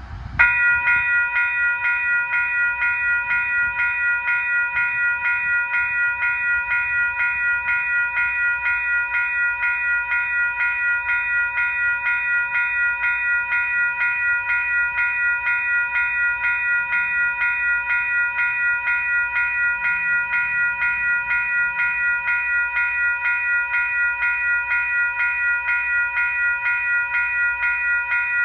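Railway grade-crossing warning bell ringing steadily at about three strokes a second, with a faint low rumble of the approaching train beneath it.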